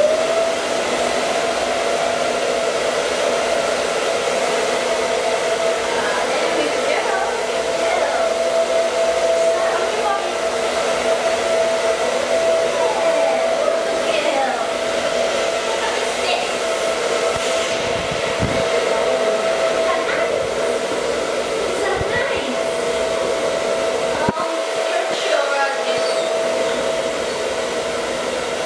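Handheld hair dryer switching on and running steadily, a constant tone over the rush of air, as it blows through a German Shepherd puppy's coat.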